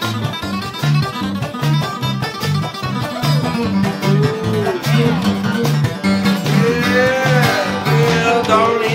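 Bluegrass band playing an instrumental break on fiddle, resonator guitar, acoustic guitar, electric bass and drums. The bass alternates between two notes on a steady beat. Sliding lead notes bend up and down through the second half.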